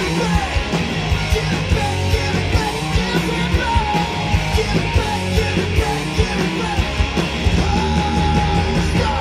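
Live hard rock band playing loud and fast through a PA: distorted electric guitars, bass and pounding drums, with a singer's shouted vocals over the top.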